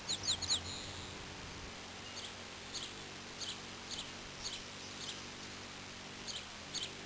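Male Anna's hummingbird at close range, hovering at a feeder with a faint low hum of its wings. Right at the start it gives a quick run of sharp chirps, then single sharp chips about every half-second.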